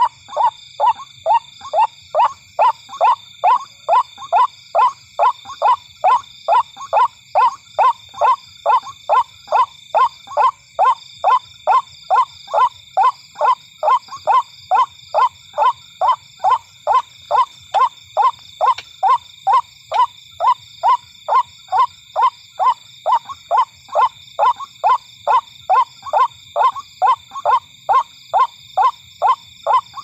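White-breasted waterhen calling its repeated 'ruak-ruak' lure call, about two short notes a second.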